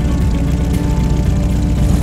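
Background music over the steady running of a large caged propeller wind machine blowing at a tent.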